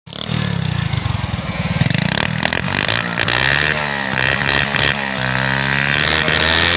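Honda Dream 100's single-cylinder four-stroke engine running through its freshly repaired muffler, revved up and down a few times. The muffler's loose inner pipe has been refitted and repacked with fibre mat and steel wool.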